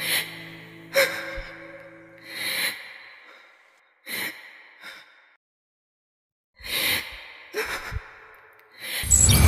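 A woman crying: several short sobbing breaths and sniffs at uneven intervals, with the last held notes of the music fading out over the first couple of seconds. A loud, dense burst of noise sets in just before the end.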